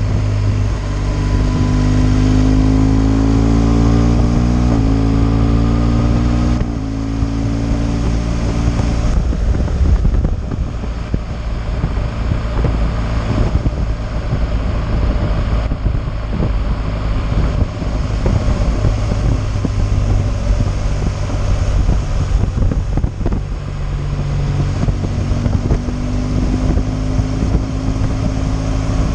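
BMW R 1200 GS boxer-twin engine accelerating through the gears in the first few seconds, its pitch climbing, dropping at a shift and climbing again. It then cruises under a steady rush of wind on the microphone, and the engine pulls up again near the end.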